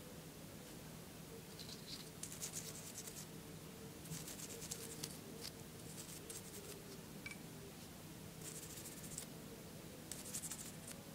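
Small brush wet with 3-in-1 oil scrubbing the metal parts of an airsoft pistol: short bursts of quick scratchy strokes, about five of them, over a faint steady hum.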